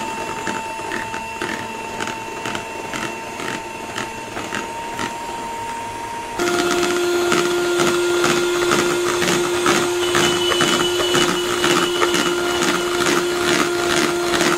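Philips electric hand mixer running, its beaters whipping cream in a plastic bowl. The motor's whine steps louder and shifts pitch about six seconds in.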